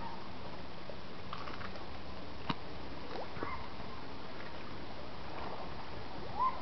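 Steady outdoor background noise, with a few faint clicks and brief squeaks that slide up and down in pitch.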